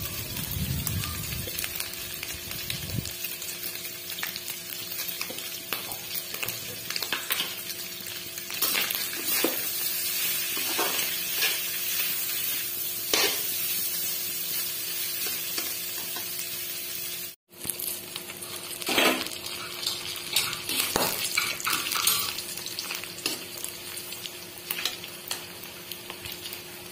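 Pork pieces sizzling and frying in mustard oil in a kadai, stirred with a metal slotted spatula that scrapes and clacks against the pan again and again over the steady sizzle.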